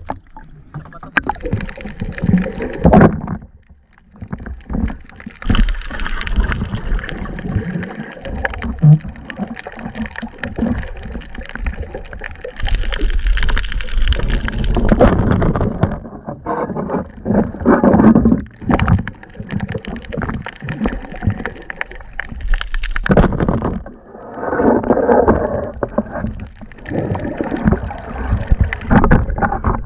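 Water sloshing and gurgling around a camera held at and below the surface, loud and uneven, with many muffled knocks; the high hiss drops out briefly a few times.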